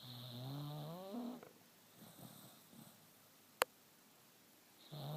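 Sleeping dachshund snoring: a snore of about a second and a half whose pitch rises toward its end, then a pause, then the next snore starting near the end. A single sharp click in the pause between them.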